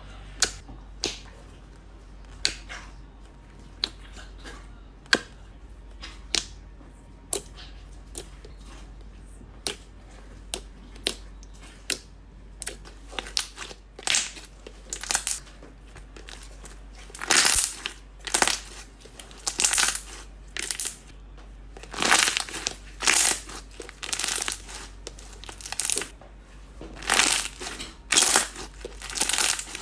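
Slime being handled: a run of sharp single pops about once a second, then, about halfway through, louder crunchy crackling squeezes that repeat roughly every second.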